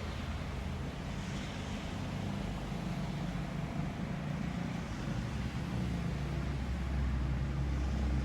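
1970s GEC ceiling fan motor running, a steady low hum with air noise, growing slightly louder. The fan is spinning in reverse because of a failed capacitor.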